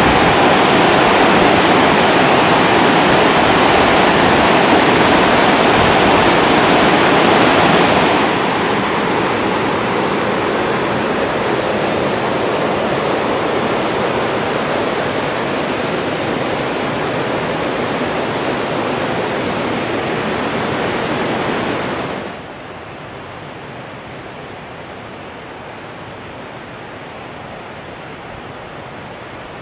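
Suwannee River whitewater rapids rushing: a loud, even wash of water noise that falls to a softer steady rush about eight seconds in. About twenty-two seconds in it drops away to a quiet background with a faint, high, regular ticking.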